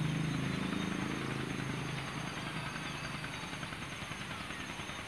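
A low motor drone that fades away over the first two seconds, leaving a steady outdoor hiss with a few faint high chirps.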